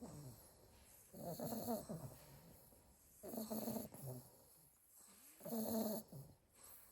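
Staffordshire bull terrier puppy snoring in its sleep: three snores, about two seconds apart.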